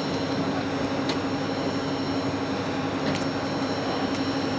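Parked twin-engine jet airliner running steadily: a constant hum with a thin high whine above it, and a few faint ticks.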